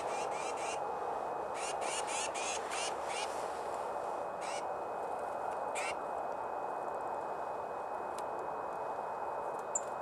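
Small songbirds calling: quick runs of short high call notes through the first three seconds, two more single notes around the middle, and one sharp chirp near the end, over a steady background hiss.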